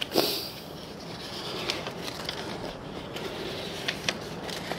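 Release paper being peeled off the adhesive back of a peel-and-stick EPDM rubber pitch pan, with the paper rustling and the flange pressed down by hand. There is a louder rustle just after the start and a few sharp clicks later on.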